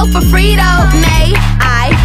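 A song with a vocal line over deep bass notes, several of which slide downward in pitch.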